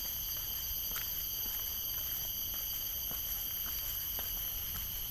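A steady chorus of forest insects, crickets by the walker's word, holds several high-pitched tones without a break. Faint footsteps on the trail click irregularly underneath.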